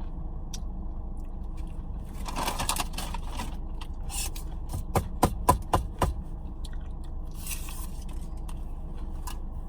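Eating sounds close to the microphone: chewing on a fast-food meal, with rustles of the paper wrapper and a quick run of sharp crackles about five to six seconds in, over a steady low hum.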